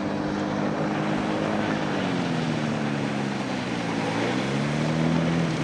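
Engine and pusher propeller of a motorized hang-glider trike on floats running as it skims across water, over a steady hiss. The engine note sinks about two seconds in and climbs again near the end.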